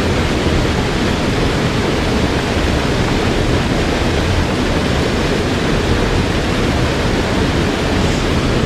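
Mountain stream's water rushing, a loud, steady, even rush.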